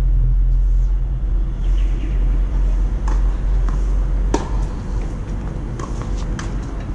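A few sharp knocks of a tennis ball off racket and court during a rally, the loudest about four seconds in, over a steady low rumble.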